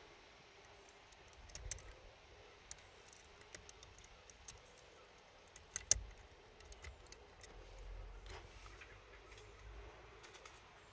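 Faint plastic clicks and taps of a blade fuse being handled and pushed into a car's fuse box, with one sharper click about halfway through.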